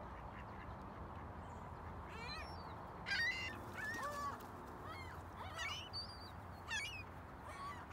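Gulls calling: a string of short, harsh, repeated calls that begins about two seconds in, over a steady low background rumble.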